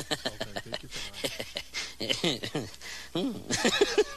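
People's voices, with many short sharp clicks throughout.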